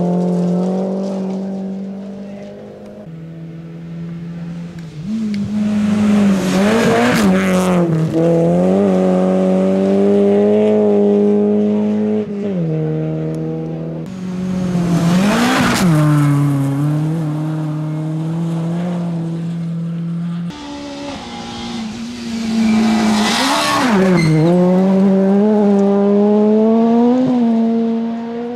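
Rally cars racing past on a gravel stage, engines revving hard with the pitch swooping through gear changes. Three loud pass-bys come about eight seconds apart, each with a rush of noise as the car goes by.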